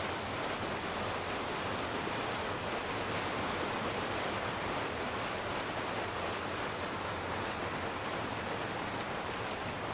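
Steady, even wash of ocean waves.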